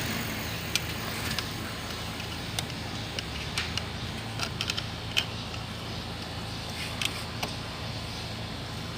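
Light clicks and taps from a multimeter and its probes being handled to check a car battery's voltage, over a steady low hum.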